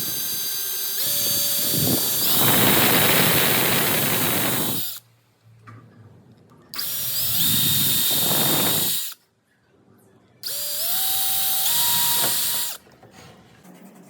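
Power drill run in three bursts, the first about five seconds long and the next two about two seconds each, its whine stepping up in pitch as it speeds up.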